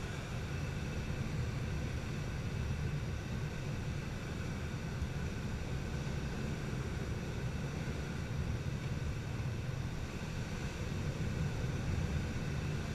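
Steady airflow noise around a glider's cockpit canopy in gliding flight: a low rumble with a thin hiss over it, no engine.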